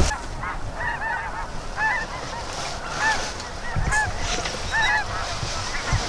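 A large flock of geese calling, many short high honks and yelps overlapping without a break.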